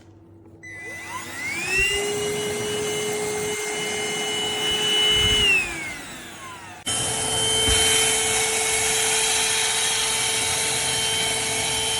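Cordless handheld vacuum cleaner switched on, its motor whine rising as it spins up, running steadily, then winding down about six seconds in. Just after, a steady run of the motor cuts in abruptly and continues.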